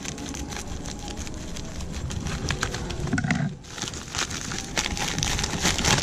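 Plastic bubble-padded mailer crinkling and crackling as it is cut open with scissors and its contents are pulled out, a dense run of small crackles that gets busier in the second half.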